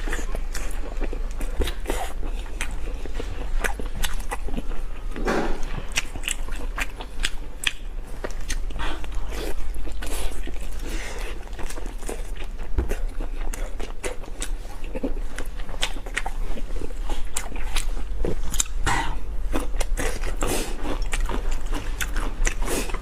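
Close-miked mukbang eating: repeated bites, crunching and chewing with sharp crackly clicks scattered throughout, over a steady low hum.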